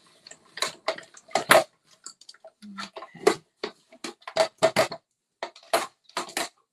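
Manual die-cutting machine being hand-cranked: the handle turns and the cutting plates run through the rollers, giving a series of irregular clicks and knocks.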